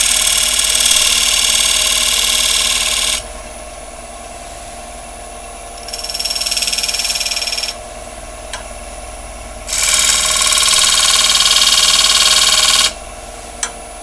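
Skew chisel, used flat as a negative rake scraper, scraping the face of a wooden bowl spinning on a wood lathe, in three passes: a long one at the start, a shorter, quieter one about six seconds in, and another long one from about ten seconds in. Between passes the lathe keeps running with a steady hum and whine, and there are a couple of light clicks.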